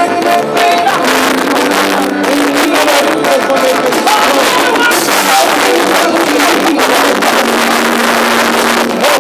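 Band music playing: an instrumental passage with held melody notes over guitar, with no sung words.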